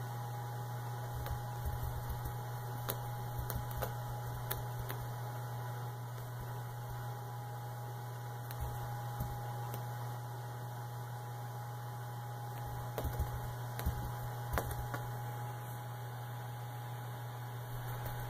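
Steady low electrical hum with a thin, higher steady whine over it, broken by scattered soft taps and knocks, several of them bunched together about two-thirds of the way through.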